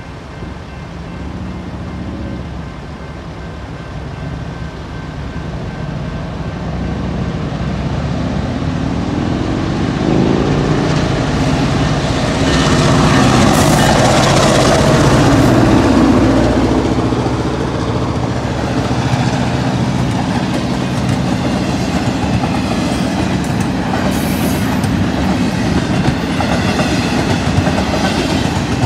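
BNSF diesel freight locomotive approaching and passing close by, its engine growing louder to a peak about halfway through. Empty TTX flatcars follow, rolling past with steady wheel clatter.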